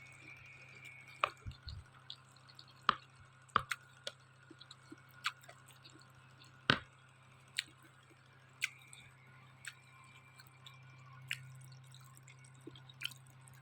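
Wet mouth clicks and smacks of someone chewing spicy noodles, coming irregularly about once a second over a faint steady low hum.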